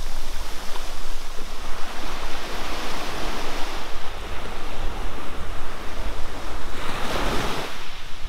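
Sea waves breaking and washing up on a beach, with wind rumbling on the microphone; a louder wave breaks near the end.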